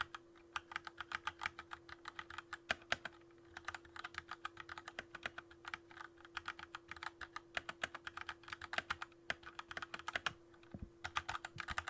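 Typing on a Keychron K2 mechanical keyboard: fast runs of key clacks, broken by a couple of brief pauses.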